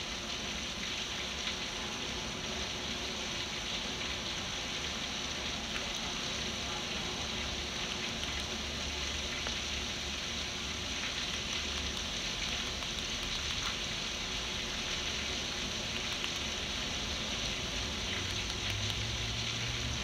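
Heavy rain pouring steadily on a screened pool enclosure and its flooding deck, with a low rumble underneath at times.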